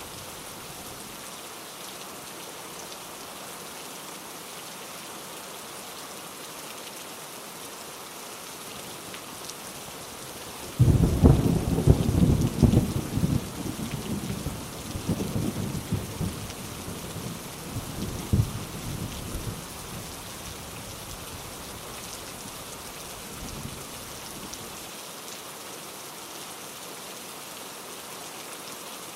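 Steady heavy rain, with a sudden clap of thunder about a third of the way in that rumbles and crackles for several seconds before fading back under the rain.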